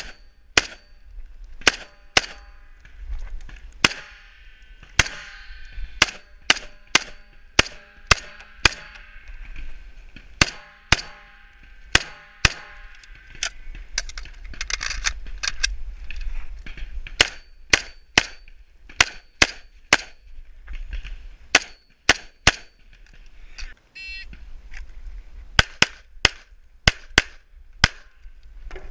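Springfield M1A rifle firing a long string of sharp, close shots, often less than a second apart, with short pauses between target groups. Near the end a handgun takes over for the last few quick shots.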